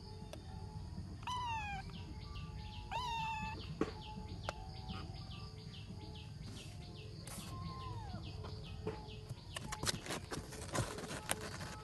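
Young ginger kitten meowing: two high meows that fall in pitch, about a second and a half apart, then a fainter one later on. Near the end, a run of sharp clicks and scratches as the kitten moves about.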